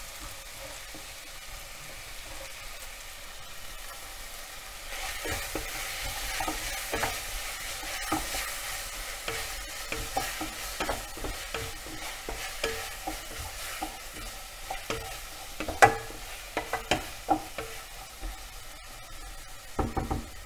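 Chopped onions and tomato sautéing in oil in a metal saucepan, sizzling steadily while a wooden spatula stirs them with repeated scrapes and knocks against the pan. The sizzle grows louder about five seconds in, and the sharpest spatula knocks come in the last few seconds.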